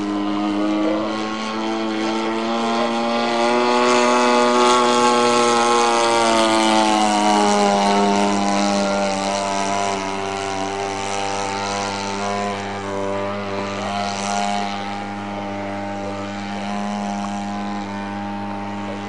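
The XYZ 50cc two-stroke engine of a large-scale CAP 232 model aerobatic plane, turning a 20x8 propeller in flight. The note rises and gets louder over the first few seconds, drops in pitch about six to eight seconds in, then holds steady.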